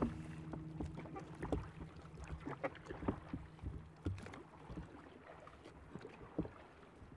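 Water splashing and lapping irregularly against the wooden hull of a currach as it is rowed through a light sea.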